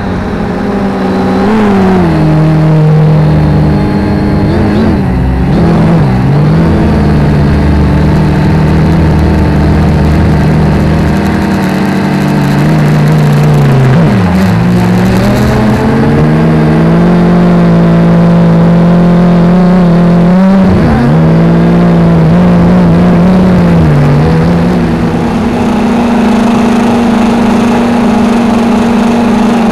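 Quanum Nova quadcopter's motors and propellers buzzing in flight, heard loud and close from its onboard camera. The pitch holds steady, dipping and recovering briefly several times as the throttle changes.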